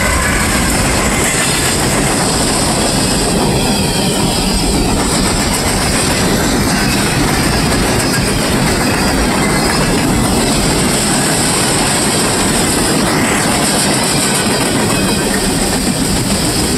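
Freight train of open coal hopper cars rolling past close by: a steady loud rumble with the clatter of steel wheels on the rails.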